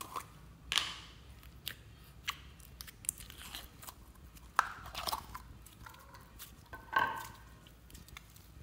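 A small plastic slime tub being unscrewed and white slime pulled out of it and squeezed by hand: irregular crackles and clicks, with a few louder pops, the loudest about four and a half seconds in and again about seven seconds in.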